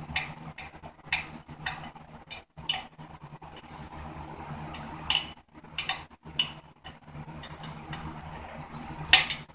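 Scattered clicks and small clatters of hands working the CDI box connector and wiring harness on a Honda XR50 pit bike frame, with a sharper clatter near the end. A low steady hum runs underneath.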